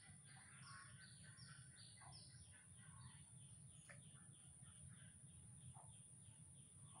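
Near silence: faint bird chirping, a quick run of short falling high notes repeated a few times a second, over a low steady rumble.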